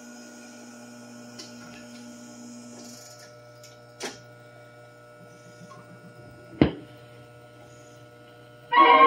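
Wurlitzer 1015 jukebox's record changer cycling between records: a steady mechanical hum, with clicks as a record is carried out of the magazine to the turntable and one sharp, louder clunk about two-thirds of the way through. The next record starts playing just before the end.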